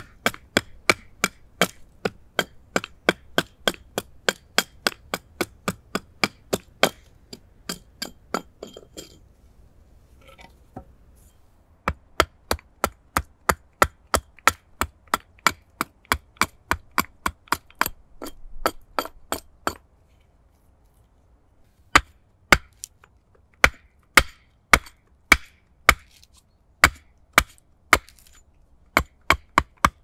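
Hatchet chopping into a split stick of wood, shaving kindling curls from it: sharp knocks about two or three a second, with short pauses about ten and twenty seconds in.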